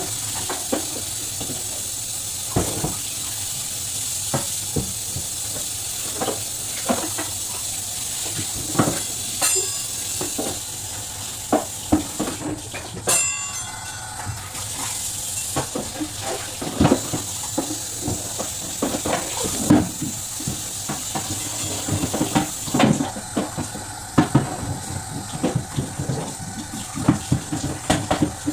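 Tap water running into a sink, with frequent knocks and clatter of hard items being handled and rinsed, as when washing out refrigerator parts.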